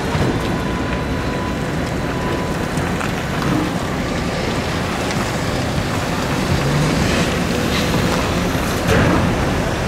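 Volvo EC220E excavator's diesel engine working under load with its hydraulics as it digs clay, swings and lifts the bucket: a steady rumble. About nine seconds in, a louder rush of sound as the clay is dumped from the bucket into the truck's tipper body.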